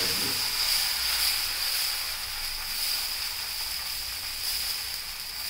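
Dosa batter sizzling on a hot tawa as a ladle spreads it out: a steady hiss.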